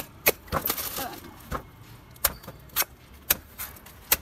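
Large knife chopping into the husk of a green young coconut: a series of sharp chops, about eight, at uneven intervals.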